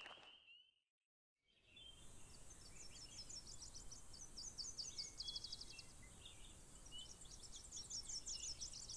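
Faint birdsong: quick high trills and chirps from several birds, starting after a second or two of silence.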